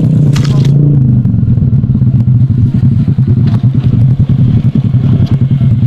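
Motorbike taxi engine running steadily with a low, throbbing hum. A brief rattle comes about half a second in.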